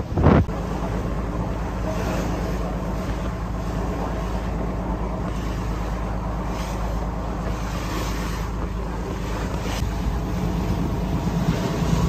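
Passenger boat's engine running steadily under way, a constant low hum, with wind buffeting the microphone.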